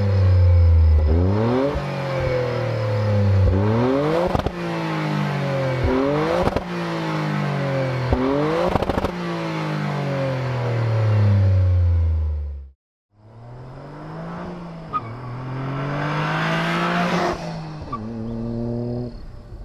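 Toyota GR Corolla's turbocharged 1.6-litre three-cylinder through an HKS LEGAMAX Sports prototype exhaust, blipped repeatedly at standstill: each rev rises and falls back, with sharp cracks between some of them. After a brief cut to silence about 13 s in, the car accelerates past, rising to a loud peak and then fading away.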